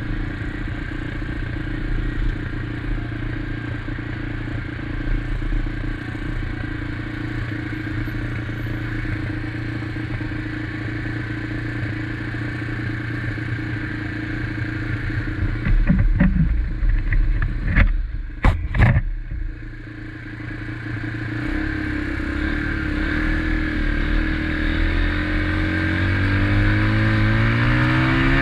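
SSR XF250 motorcycle engine running at a steady speed. A few sharp clunks come about two-thirds of the way through and the level briefly drops, then the engine note climbs steadily as the bike accelerates.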